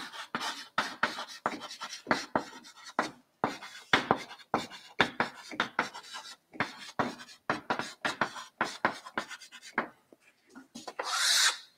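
Chalk writing on a blackboard: a quick run of taps and scratches as a line of words is written, ending in a short hiss near the end.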